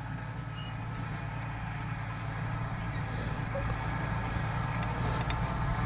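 Strong wind buffeting the microphone, a low rumble that grows slowly louder, with a couple of faint clicks near the end.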